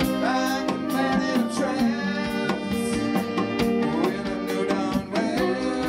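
A live band plays a song: a man sings over guitar, trombone and saxophone, with a steady drum beat.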